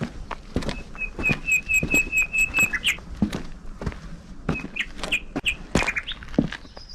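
Songbird singing a run of about ten evenly spaced, high whistled notes, about five a second, for two seconds. Shorter calls and a quick trill follow near the end, over the regular thud of footsteps walking.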